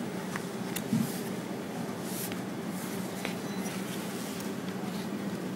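Steady low hum with faint clicks and rubbing as a small plastic vacuum solenoid valve is turned over in the fingers, and a soft bump about a second in.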